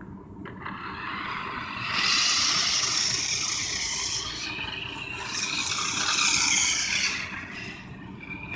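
New Bright RC race car driving, its small electric motor and gears whirring with the wheels on the ground. It swells twice, about two and six seconds in, dips between, and fades near the end as the car moves away.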